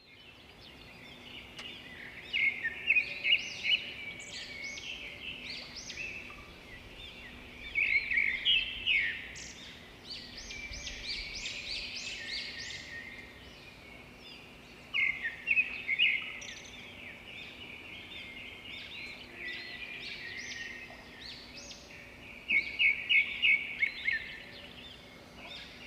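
Birds chirping and singing throughout, with four louder spells of rapid chirps spread across the stretch.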